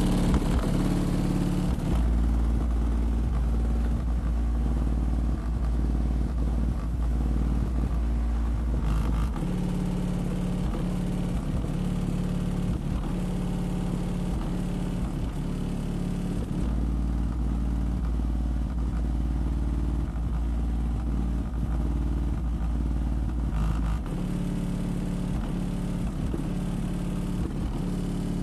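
Bass-heavy music played through a pair of Skar Audio VXF-12 12-inch subwoofers in a dual ported box, heard from outside the car. Stretches of very deep, sustained bass lasting several seconds alternate with stretches of a higher, punchier bass line.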